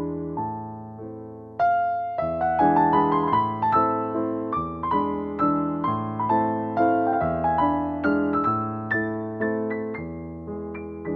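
Background piano music: a gentle melody of struck notes, each fading after it sounds, that grows louder and busier about a second and a half in.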